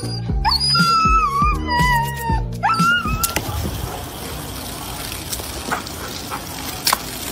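A husky's wavering, whining howl over music with a steady beat. Both stop about three seconds in, giving way to the steady hiss of a thin water jet spraying and splashing into a plastic wading pool.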